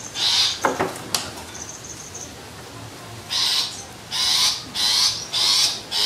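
Long-tailed shrike (cendet) giving harsh, rasping calls, each under half a second: one at the start, then a run of four about half a second apart from a little past three seconds in. A single sharp click comes about a second in.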